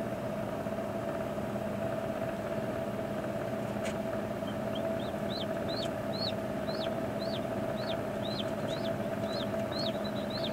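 Newly hatched chick peeping: a run of short, high peeps, each rising and falling, about two a second, starting faintly about halfway through and then holding steady. Underneath runs a steady mechanical hum.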